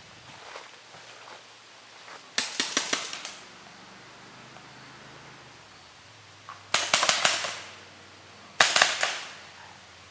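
Paintball markers firing: three quick bursts of several sharp pops each, the first about two and a half seconds in, the next around seven seconds, and a last one shortly after.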